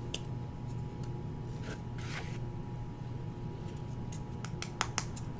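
Light scraping and soft clicks of a glue-coated model stone being pressed and rolled in fine flock turf in a lid, with a short scrape about two seconds in and a few sharp clicks near the end. A steady low hum runs underneath.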